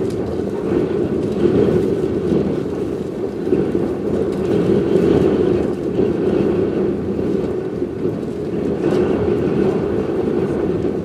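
Wind buffeting the microphone: a loud, steady rumble that swells and eases with the gusts.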